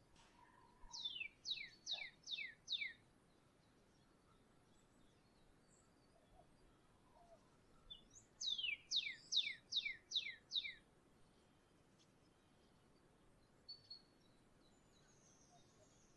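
A songbird singing two phrases of quick, evenly repeated, down-slurred whistles, five notes about a second in and six or seven more about eight seconds in, each note falling steeply in pitch. A few faint chirps follow near the end.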